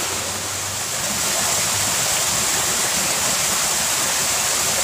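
Small rocky stream rushing steadily over stones, an even wash of running water that grows a little louder about a second in.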